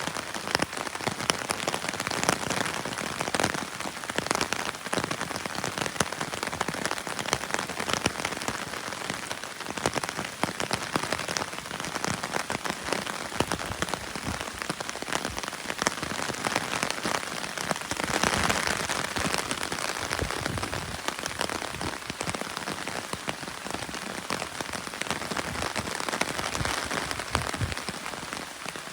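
Steady rain falling, a dense patter of many drops hitting a surface, briefly growing heavier about two-thirds of the way through.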